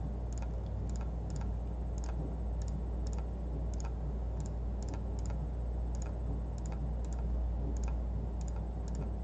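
Computer mouse clicking, a few irregular clicks a second, over a steady low hum.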